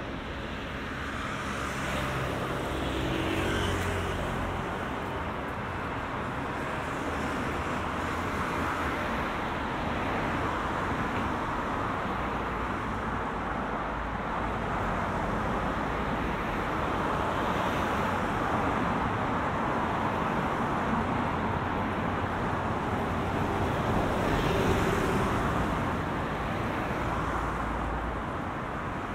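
City street traffic: a steady rush of road noise with several cars passing, the loudest a few seconds in and again near the end.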